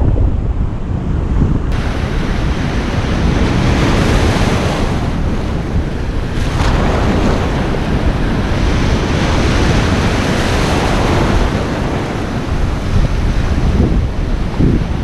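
Ocean surf washing onto the beach in swells that rise and ease every few seconds, with wind buffeting the microphone in a steady low rumble.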